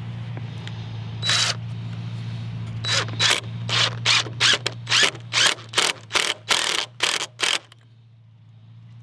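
DeWalt cordless impact driver driving screws through pocket holes into a 2x4: one short burst about a second in, then a run of quick trigger bursts from about three seconds in until it stops near the end. A steady low hum runs underneath.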